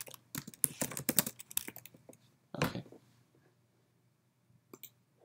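Typing on a computer keyboard: a quick run of keystrokes for about two seconds and one more a little after, as a line of code is entered. Near the end, two quick mouse clicks.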